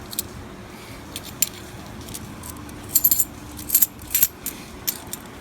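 Half-dollar coins clinking against one another as they are handled and sorted from an opened roll: a scatter of sharp metallic clinks, with small bunches of them about three and four seconds in.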